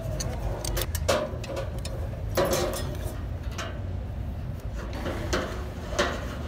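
A few scattered metallic knocks and clinks of hand tools and engine parts as an oil filter housing is fitted to a bare diesel engine block and its bolts are tightened with a long-handled wrench. A steady low hum runs underneath.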